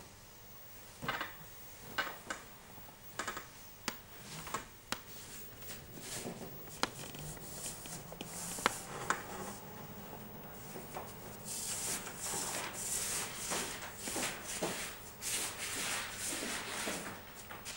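Rustling of bedclothes with scattered light knocks and clicks as someone moves about on a bed. The rustling becomes denser and louder about two thirds of the way through.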